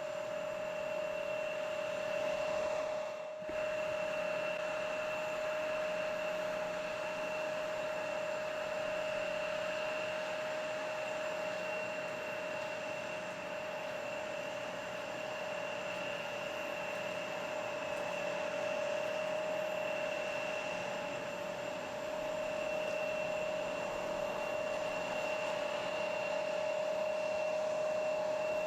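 Jet airliner engines running steadily with a constant whine over a broad rush, the pitch holding level throughout; there is a brief dropout about three seconds in.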